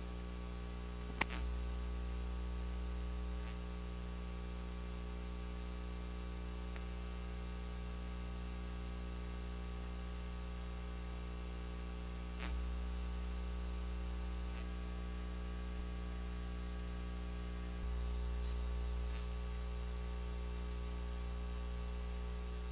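Steady electrical mains hum with a faint hiss, broken by a couple of faint clicks, one about a second in and another about twelve seconds in.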